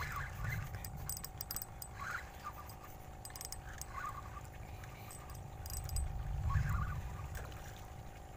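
Spinning reels clicking and rattling in short bursts as two hooked fish are fought on rod and line, over a low rumble that swells twice.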